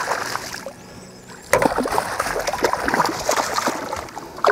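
Rainbow trout thrashing in a landing net at the side of a boat, splashing the water; after a quieter moment the splashing starts up loudly about a second and a half in.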